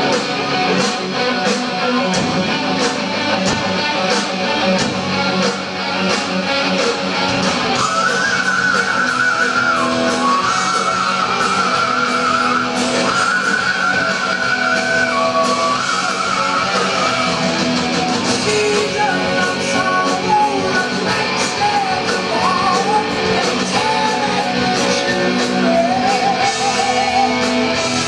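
Heavy metal band playing live: distorted electric guitars, bass and drums with crashing cymbals, and a singer's vocals over them. A high melodic line with vibrato comes in about eight seconds in.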